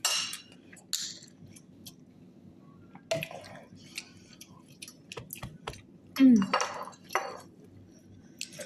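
Cutlery clinking and scraping against dishes during eating: scattered short clicks throughout, with brief voice sounds about three and six seconds in.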